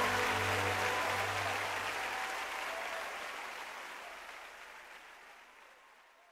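Closing seconds of a gospel song fading out: a hiss-like wash with a few held notes. The bass stops about two seconds in and the rest dies away gradually.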